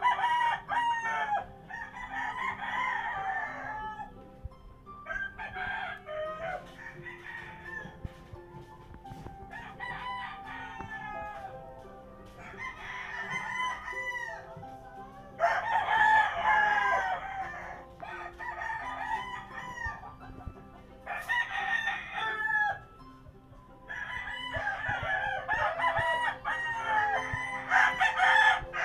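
Roosters crowing, one call after another every few seconds, some calls overlapping, over a steady low hum.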